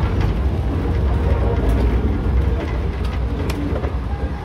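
Heritage tourist train carriage rolling along the track: a steady low rumble of wheels on rails, with a few faint clicks.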